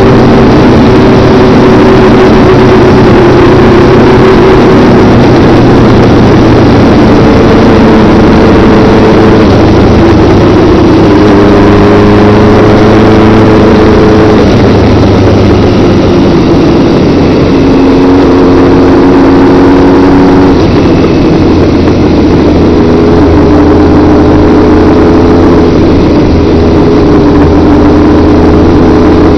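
Motorcycle engine running at road speed under heavy wind rush on the camera microphone, very loud throughout, its hum holding steady notes that shift in steps every few seconds.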